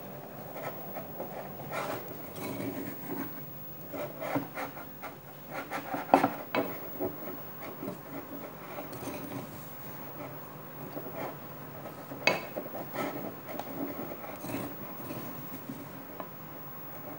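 Crumbly flour dough being mixed by hand and with a utensil in a glass bowl: steady soft rubbing and scraping, with irregular clinks of the utensil against the glass, the sharpest about six and twelve seconds in.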